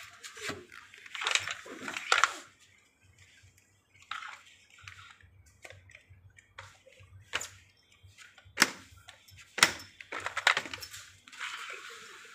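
R for Rabbit Chocolate Ride stroller's frame and plastic wheel units being handled and fitted together: irregular clicks, knocks and rattles of plastic and metal parts, with short rustling in between and a few sharper clicks.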